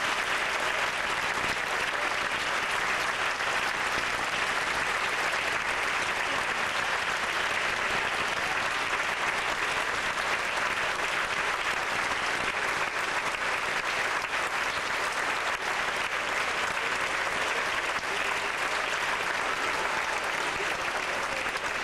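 Theatre audience applauding steadily through a curtain call, a dense, even clapping with no break.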